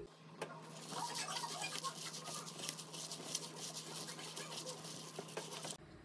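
Plastic-gloved hand squeezing and crushing a block of firm tofu in a bowl: the glove crinkles and the tofu squishes with many small crackles, stopping abruptly near the end.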